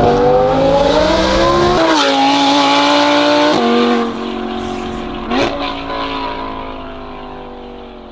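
Audi R8's 5.2-litre V10 fitted with a titanium exhaust and free-flow headers, accelerating hard with two quick upshifts where the pitch climbs and then drops sharply. It then holds steady with a brief rev blip about five seconds in and fades away toward the end.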